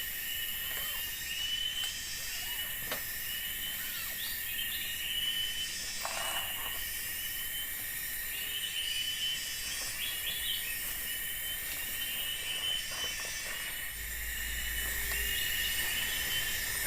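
Forest insect chorus: a steady high drone with short chirping calls repeating throughout, and now and then a faint knock or rustle.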